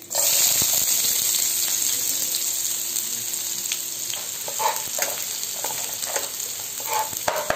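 Chopped onions dropped into hot oil, starting a sudden dense sizzle that eases off slowly. From about halfway, the onions are stirred in short scraping strokes over the continuing frying sizzle.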